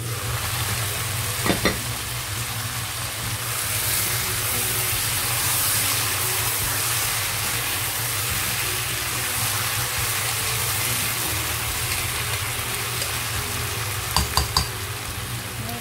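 Chicken pieces sizzling as they fry in oil in a pot, the sizzle swelling as the lid comes off, with a spatula stirring them. Sharp clinks sound about a second and a half in and again near the end, over a steady low hum.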